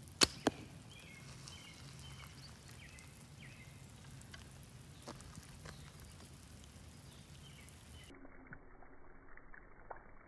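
A yew selfbow shot: a sharp snap as the string is released, followed about a quarter of a second later by a second crack as the steel-tipped arrow strikes the target about 10 yards off. A few light clicks follow later.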